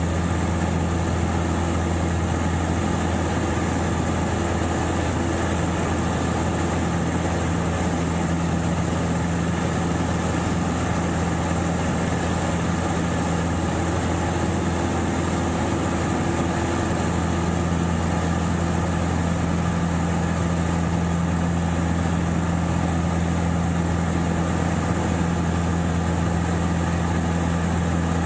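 Steady drone of a Pitts Special S-2A's four-cylinder Lycoming engine and propeller in flight, heard from the open cockpit. Its tone shifts slightly through the middle.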